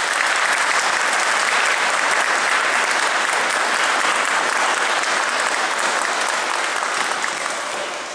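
Congregation applauding, a steady sustained clapping that starts to die away near the end.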